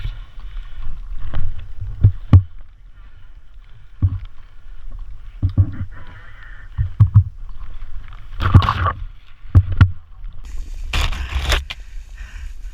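Footsteps and rustling kit of players walking, heard as irregular low thuds with a few sharp clicks, and two louder hissing bursts, one around the middle and one near the end.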